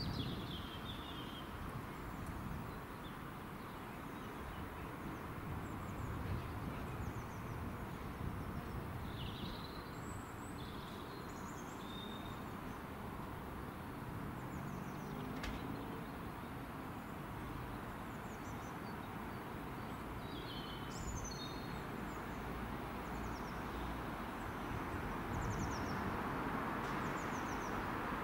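Steady outdoor background noise with scattered short chirps of small birds. The rumble of a distant electric multiple-unit train on the approach grows a little louder near the end.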